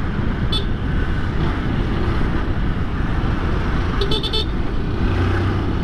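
Honda CG Titan 160 single-cylinder motorcycle engine running at low speed, with road and traffic noise around it. A quick run of high beeps comes about four seconds in.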